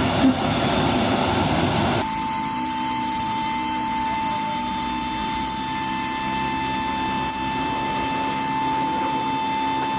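Jet aircraft engine noise that cuts off abruptly about two seconds in. It is replaced by a quieter steady hum with a steady whine over it.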